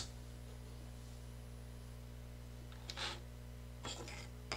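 Steady low electrical hum, with faint short scrapes of tangram pieces being slid and set down on a wooden board about three seconds in and again near the end.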